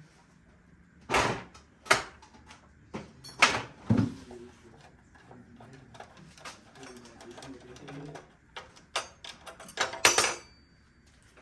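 Irregular knocks, clicks and scrapes of miter saw parts being handled and fitted by hand, with a few louder knocks about a second in, around four seconds and near the end.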